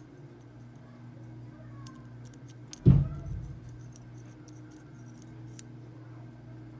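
Faint, scattered clicks of a lock pick and tension wrench working the pin stack inside a Master round body padlock while it is being picked, over a steady low hum. A loud low thump about three seconds in.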